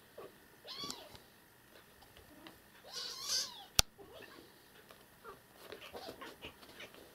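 Kitten mewing: two high-pitched mews about two seconds apart, the second louder. A single sharp click follows just after the second mew, with soft rustling toward the end.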